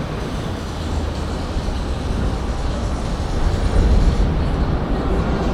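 City street traffic noise: a steady low rumble of passing vehicles that grows slightly louder near the end.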